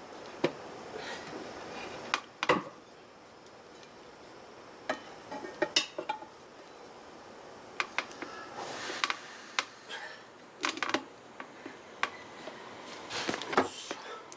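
Metal tire levers and tools clinking and knocking against a motorcycle wheel rim while a tire is mounted by hand, in about a dozen irregular sharp clicks and clanks.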